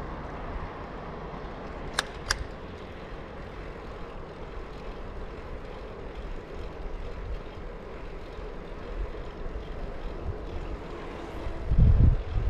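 Bicycle rolling along an asphalt path with wind on the microphone: a steady low rumble and hiss. Two sharp clicks come about two seconds in, and a loud low buffet near the end.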